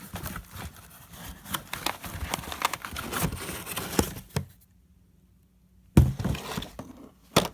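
Action-figure packaging being handled: dense crinkling and rustling with small clicks, then a brief pause and two sharp knocks, one about six seconds in and one near the end, as the box is moved and set down.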